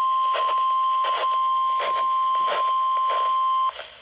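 A steady single-pitch alert tone near 1 kHz, the warning alarm tone that heralds an emergency weather alert, cutting off sharply near the end. A fainter irregular background sound runs beneath it.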